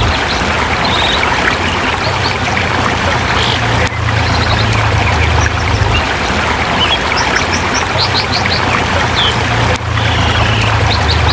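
Forest river rushing steadily over rocks, with short bird chirps scattered over the water noise and a low hum that comes and goes underneath.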